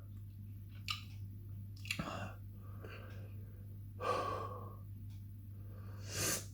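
A man breathing hard through his mouth, with several noisy breaths a second or two apart and the loudest one near the end, as he copes with the burn of superhot chili paste in his stomach.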